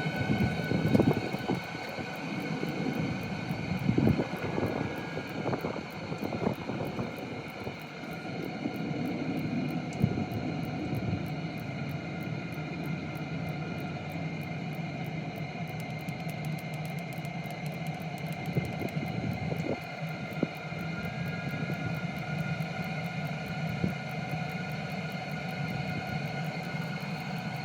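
Chinese 12 V diesel heater running on its minimum heat setting: a steady whir from its fan, with the diesel dosing pump ticking now and then.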